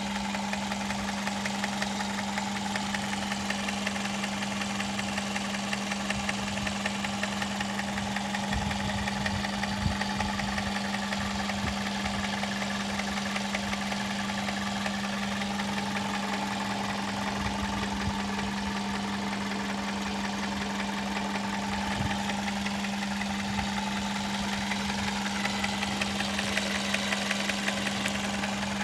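Toyota Corolla's 1.4 litre 4ZZ-FE four-cylinder engine running steadily, with a constant hum and a fast, even ticking: the unexplained noise this engine makes once it is warm.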